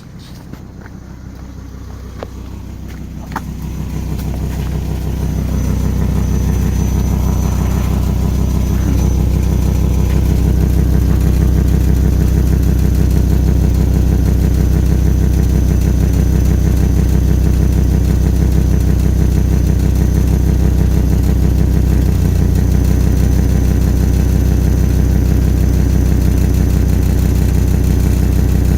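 Volvo V70 XC engine running at a steady idle, getting louder over the first few seconds and then holding level, with the exhaust leaking.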